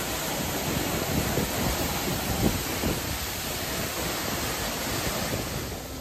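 Steady rushing of a waterfall, with wind buffeting the microphone and a brief bump about two and a half seconds in.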